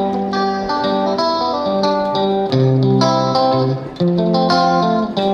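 Background music: plucked guitar notes with a steady beat.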